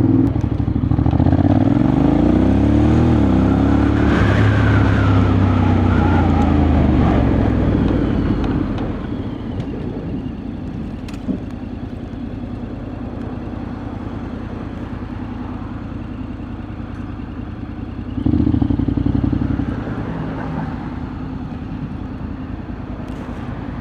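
Honda X-ADV 750's parallel-twin engine accelerating on the road, its pitch rising, dropping once as it shifts, then holding steady. About eight seconds in it eases off to a quieter run, and it picks up again briefly near the end.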